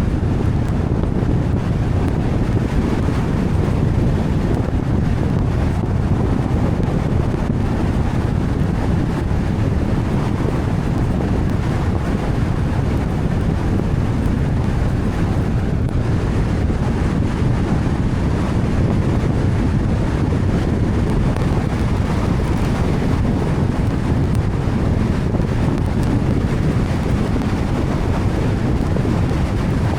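A car driving through heavy rain: a steady, even rumble of tyres on the wet road with the rush of rain and water.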